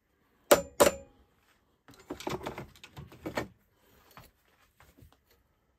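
Two sharp hammer blows on a steel puller, metal on metal with a brief ring, as it is shock-loaded to pull the clutch front plate off a Denso 7SB16C AC compressor's shaft. About two seconds in comes a run of metallic clinks and rattles, then a few faint ticks.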